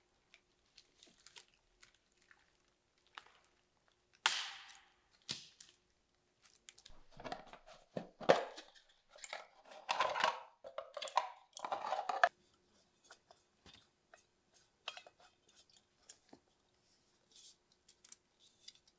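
Hands peeling an orange: irregular crackling, tearing and squishing of the peel, busiest from about four to twelve seconds in, with only small scattered clicks before and after.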